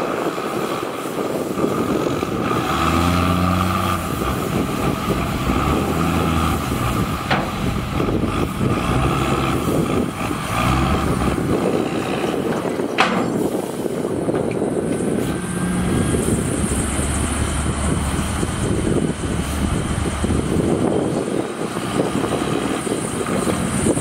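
Diesel engines of a tipping dump truck and a CAT 320D excavator running, their pitch stepping up and down as they rev and ease off. There is one sharp knock about halfway through, and a thin high whine joins in the second half.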